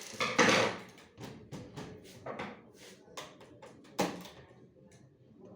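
A run of knocks, clicks and clatter, with a loud scraping burst near the start and a sharp knock about four seconds in, like covers, trays or parts being handled.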